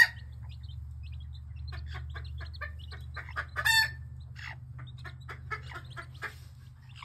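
Mother hen clucking in a run of short calls among her chicks, with one louder call a little under four seconds in; chicks peep in between.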